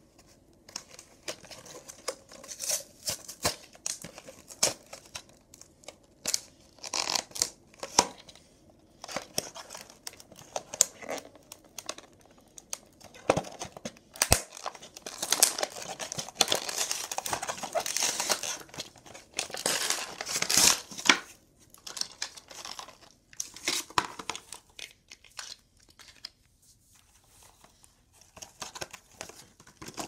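Cardboard and clear plastic toy car packaging being torn open and crinkled by hand: irregular tearing, rustling and sharp snaps, busiest in the middle and thinning out near the end.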